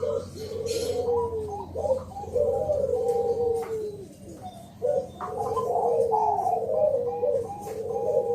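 Bangkok-strain zebra doves cooing: repeated trilling coo phrases that fall in pitch, sometimes overlapping, with a short lull about halfway through.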